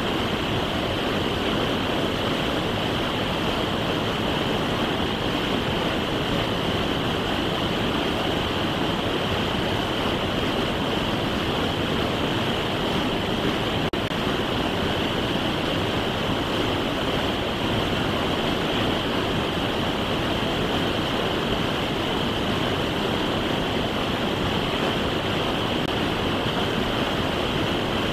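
Fast creek water rushing over rocks through whitewater rapids: a steady, unbroken roar with an even high hiss on top.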